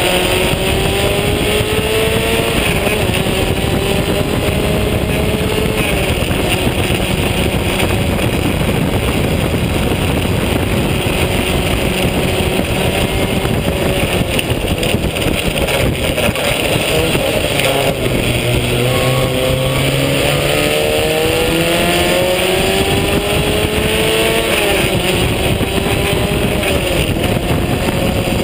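The engine of a vintage open-wheel formula race car, heard from on board at racing speed. Its pitch climbs with the revs and drops sharply at each upshift, about two and a half seconds in and again near the end. Steady wind and road rush from the open cockpit runs underneath.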